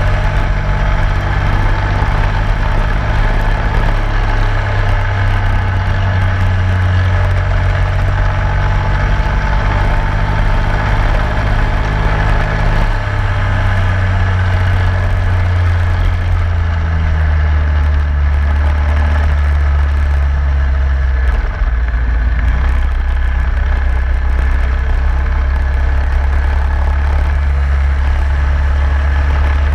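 Racing kart engine running hard, heard close up from onboard the kart, its note dropping and climbing as the kart slows for corners and accelerates out. A steady rushing noise runs beneath it.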